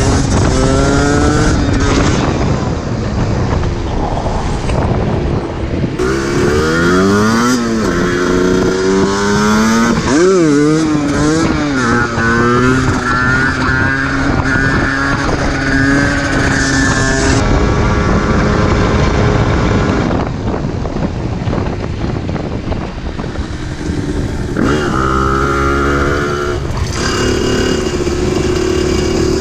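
Yamaha DT 125 single-cylinder two-stroke engine being ridden hard: the engine pitch climbs and drops again and again as it revs up and shifts, with abrupt jumps between passages.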